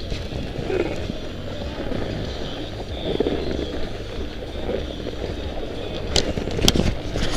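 Snowboard sliding and scraping slowly over packed snow, with wind rumbling on the action camera's microphone. A few sharp clicks come near the end.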